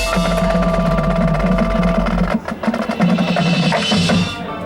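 Marching band playing, its percussion section prominent: drums and wood-block-like strikes under held notes. A deep low drone stops a little past halfway, and the music gets quieter near the end.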